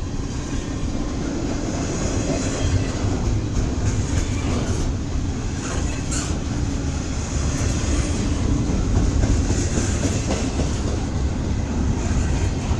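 CSX double-stack container freight train rolling past, a steady rumble with a few faint clicks from the wheels and cars.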